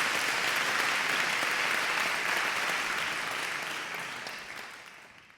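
Audience applauding, a steady spread of clapping that fades out toward the end.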